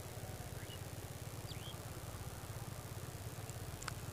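A small engine running steadily and faintly, a low, evenly pulsing hum. A few short, high bird chirps sound over it, about half a second in and again about a second and a half in.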